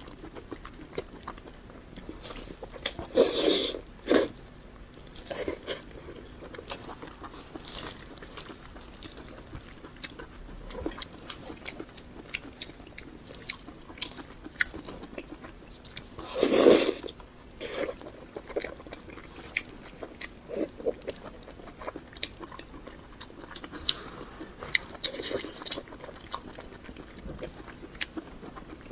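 Close-miked chewing and biting of pork large intestine, with many small wet mouth clicks and two louder bites about three seconds in and again about sixteen seconds in.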